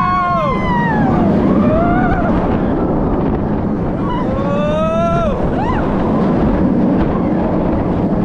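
Onboard a moving roller coaster: a steady rush of wind over the microphone and the rumble of the train, with riders' drawn-out screams that rise and fall in pitch. The screams come at the start, about two seconds in, and again about four to five seconds in.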